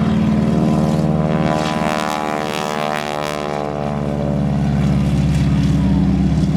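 Propeller airplane engine drone with a steady, many-toned hum. It eases off slightly about halfway through, then grows louder again.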